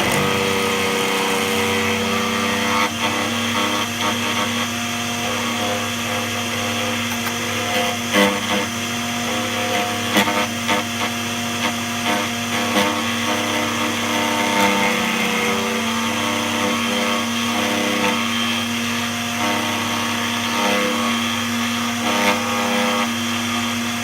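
DEFU 368A key cutting machine running with a steady motor hum while its cutter mills the track of a laser-cut Honda key blank. The cutting noise rises and falls as the key is traced along the pattern, with a few sharper bites about eight and ten seconds in.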